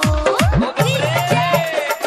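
Music: heavy electronic kick drums beat about four times a second, stop about half a second in, and give way to a melody over a steady bass line.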